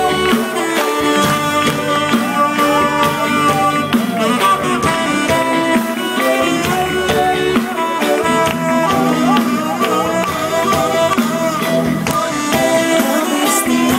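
Rock band playing live through a PA: drums keep a steady beat under guitars while a lead instrument plays a wavering melody, in an instrumental break without singing.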